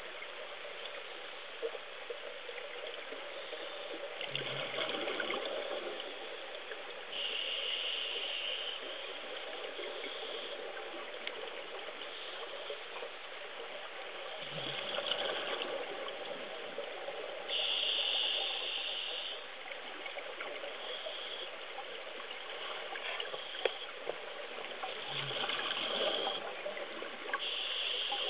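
Steady water noise, muffled as heard underwater. Every ten seconds or so it rises in a louder swell.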